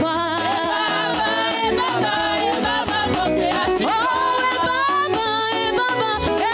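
A woman's voice singing a lively gospel praise song through a microphone and PA, over a band accompaniment with a steady beat.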